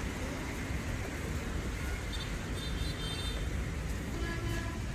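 Steady low rumble of a vehicle engine running.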